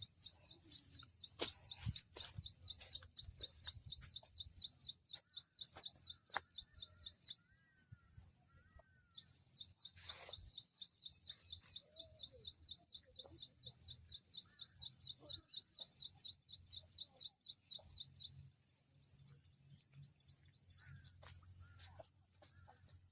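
Outdoor bird chirping: a fast, even run of short high chirps at about six a second that breaks off for a couple of seconds around seven seconds in, then carries on until near the end, over a steady thin high whine and a few scattered short sliding calls.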